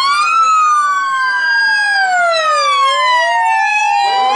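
Two HM Coastguard vehicle sirens on a slow wail, each sweeping up and down in pitch over a couple of seconds and running out of step with the other, so the two tones cross.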